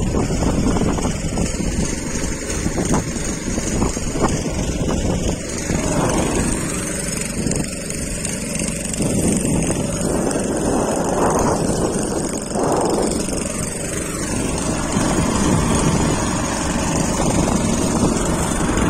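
A small fishing boat's engine running steadily under way, with water rushing and splashing along the hull in repeated surges.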